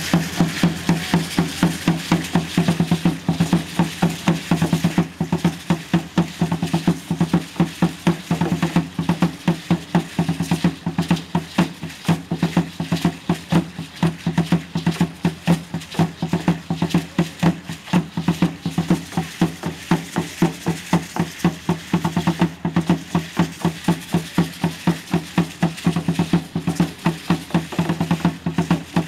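Aztec dance drums, with a tall upright drum among them, beating a steady, even pulse of about three strokes a second that carries a deep ringing tone. Dancers' ankle rattles add a shaking hiss.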